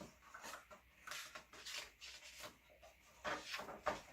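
Paper rustling and rubbing in a string of short irregular scrapes: a picture book's pages being handled and turned.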